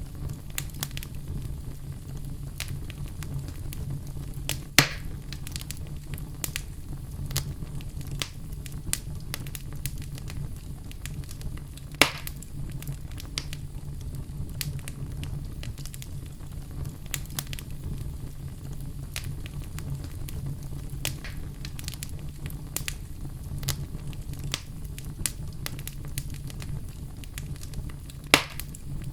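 Wood fire crackling in a fireplace: a steady low rumble of flames under constant small crackles, with three sharp, louder pops, about five seconds in, about twelve seconds in, and near the end.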